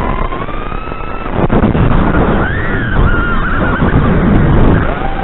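FPV quadcopter's brushless motors whining through the onboard microphone over a steady noisy rush. The pitch glides up and down with the throttle and wobbles quickly about two to three and a half seconds in.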